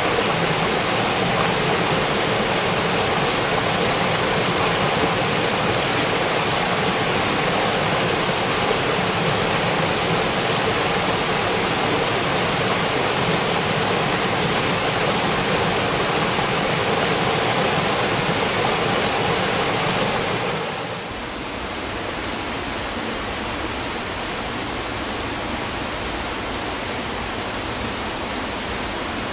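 Rushing mountain stream pouring over rocks, a steady, full water noise. About 21 s in it drops to a quieter, thinner rush.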